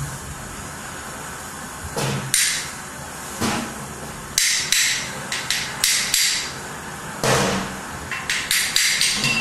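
Irregular sharp knocks and clatter from objects struck as percussion, in scattered clusters beginning about two seconds in, over a steady low background.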